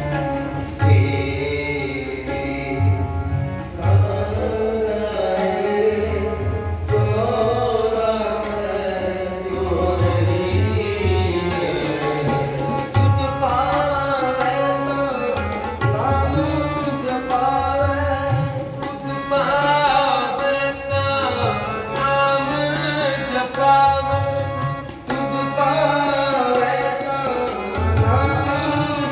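Sikh devotional kirtan: a hymn sung to harmonium and tabla, the harmonium holding steady reed tones under the voice and the tabla's low bass strokes coming in phrases.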